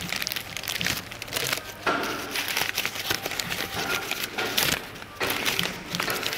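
Paper wrapping crinkling and rustling in irregular bursts as it is unfolded by hand from a new engine part.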